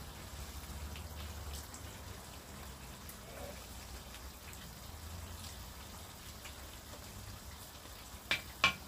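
Quiet mealtime table sounds: a low steady hum with faint scattered ticks, then two sharp clinks of utensils against dishes near the end.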